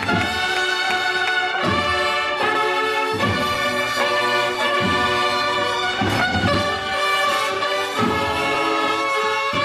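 A Holy Week procession band of brass and drums playing a processional march: loud sustained brass chords over regular drum beats.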